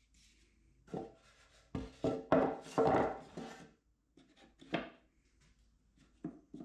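Wooden lid with a fitted insert being handled and set down on top of a wooden box: a series of short wood-on-wood knocks and rubs as it is seated.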